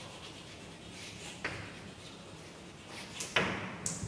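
Chalk writing on a blackboard: faint scratching with a couple of sharp taps of the chalk against the board, the strongest about three and a half seconds in.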